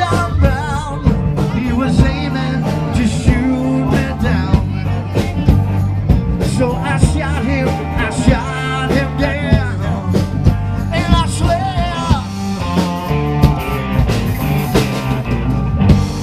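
Recorded rock music playing: a band with a steady beat and a wavering lead line, with some singing.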